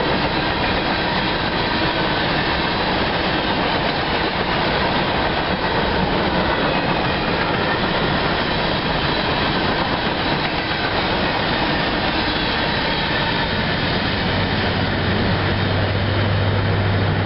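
Freight train cars rolling past on the main line, a steady loud rumble and rattle of wheels on rail. A low steady hum comes in near the end as the last cars go by.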